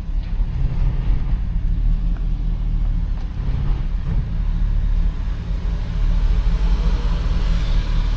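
Hummer H2's V8 engine running with a steady low rumble while air is bled from the power steering system after an oil cooler replacement. A hiss builds in the last couple of seconds.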